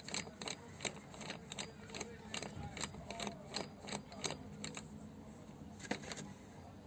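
Metal clicking and clinking of tools and power steering pump parts handled during disassembly, about three sharp clicks a second, then a pause and one sharper click near the end.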